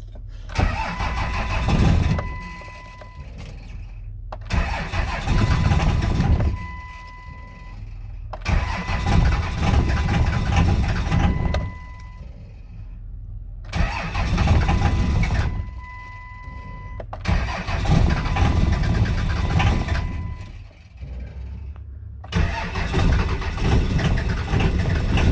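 Starter cranking a 5.9L 24-valve Cummins diesel in about six separate bursts of a few seconds each without the engine catching, on a single old battery helped by a booster charger. A steady high whine sounds through several of the bursts.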